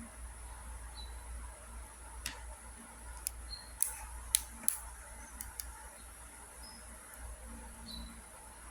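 Plastic links of a Wacky Tracks snap-and-click fidget chain clicking as the toy is bent: a scattering of sharp single clicks, bunched about four to five seconds in, over a steady high-pitched hiss.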